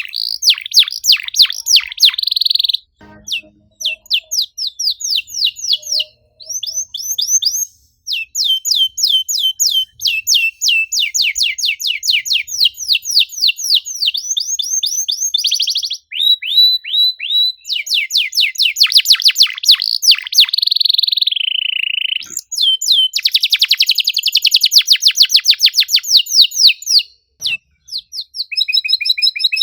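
Domestic canary singing a fast, dense song of rapidly repeated chirps and rolling trills, with a few short pauses between phrases.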